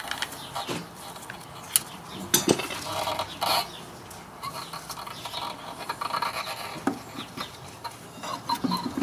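Small metal clinks, knocks and scrapes as a motorcycle front brake caliper and a screwdriver are handled and the caliper is worked back onto the brake disc.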